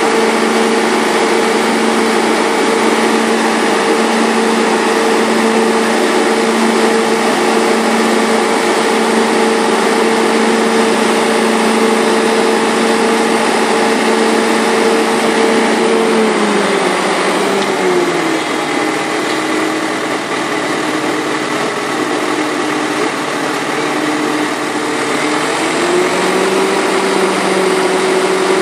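Tractor with a towed grape harvester running steadily at high speed with a held whine. About 17 s in the speed slides down, and about 26 s in it rises partway again.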